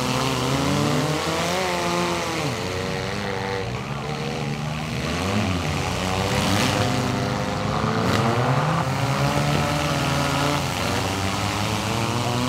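Several demolition derby compact-car engines revving together, their pitches rising and falling over and over as the cars drive and ram. A couple of sharp knocks come about halfway through.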